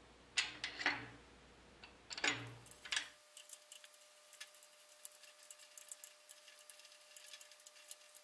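A few sharp metal knocks in the first three seconds as the main bearing caps are handled on the crankshaft. Then the fast, faint clicking of a ratcheting torque wrench turning the main bearing cap bolts down.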